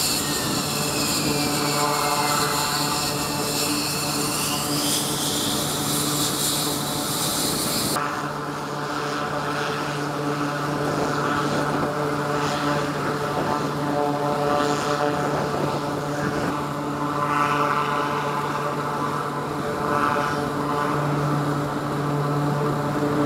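Jet engine noise on a flight line. For the first several seconds a high turbine whine falls in pitch, like a jet engine winding down. About eight seconds in, the high whine cuts away, and a steady lower drone with a constant hum continues.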